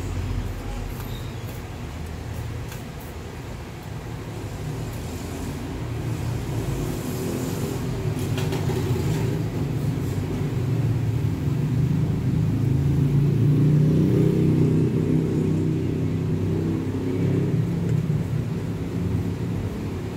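A low, steady rumbling hum, louder through the middle and easing near the end.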